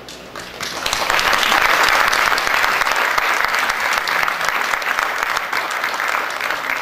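Theatre audience applauding, swelling up within the first second and easing off slightly near the end.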